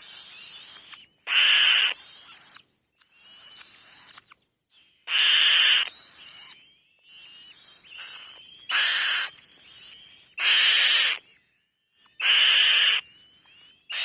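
Nestling birds begging in the nest: five loud harsh screeches, each about half a second to a second long, with fainter thin chirping calls between them.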